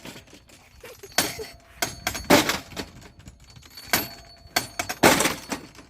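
A run of about seven sharp metallic clanks at irregular intervals, several leaving a brief ringing: hammer blows on metal.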